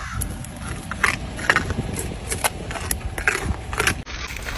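White-tailed deer crunching a raw carrot: a run of short, irregular crisp crunches, a few a second. The sound changes abruptly near the end.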